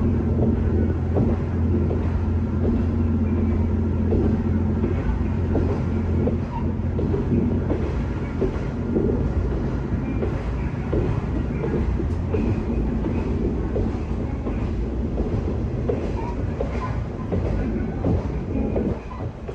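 Kanto Railway 2000 series diesel railcar running along the track, with a steady low diesel engine hum and the knock of wheels over rail joints. The engine hum fades about five seconds in, leaving mainly running noise and wheel knocks.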